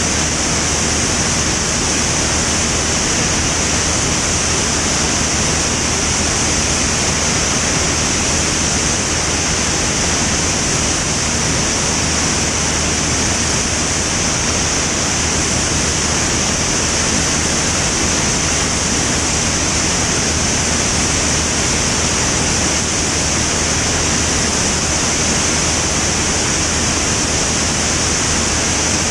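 Van's RV-10 single-engine propeller aircraft in level flight: a steady, loud rush of airflow with a low, even drone from the engine and propeller underneath.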